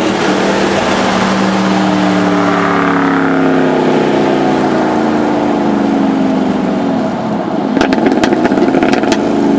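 2005 Pontiac GTO's LS2 V8 with an H-pipe and deleted mufflers, heard inside the cabin, running loud with its engine note slowly falling in pitch. The sound dips briefly about seven seconds in, followed by a few sharp clicks.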